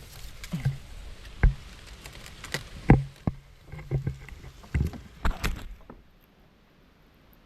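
Footsteps splashing and squelching through shallow water and mud: a series of irregular heavy steps, stopping about six seconds in.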